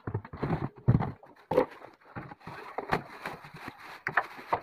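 A cardboard box being opened and an instant gas water heater lifted out of it: irregular rustling of cardboard and plastic wrapping, with knocks and thumps, the loudest about a second in.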